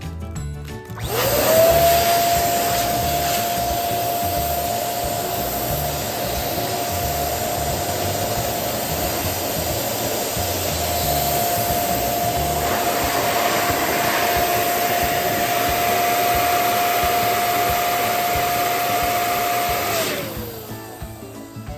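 Electric balloon pump running: the motor spins up to a steady whine about a second in, with a rush of air, holds for about nineteen seconds, then winds down near the end.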